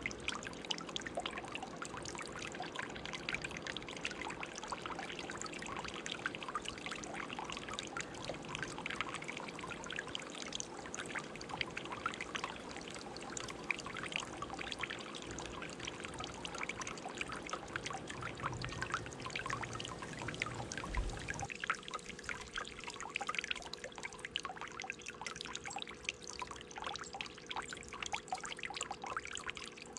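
Tiered stone garden fountain running, its water trickling and splashing steadily. A low rumble underneath drops away about two-thirds of the way in.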